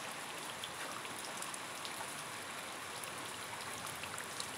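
Faint, steady hiss of falling rain, with scattered small drop ticks.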